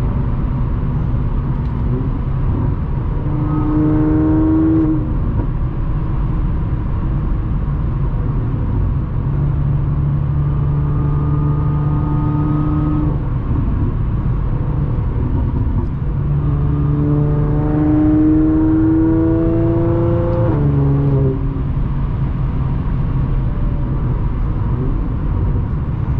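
Audi S4's supercharged 3.0-litre V6 through an aftermarket AWE exhaust with test pipes, heard from inside the closed cabin while driving: a steady exhaust drone over road noise. The engine note rises under throttle about two seconds in, holds at a higher pitch for a few seconds mid-way, and rises again from about sixteen seconds before dropping back around twenty-one seconds.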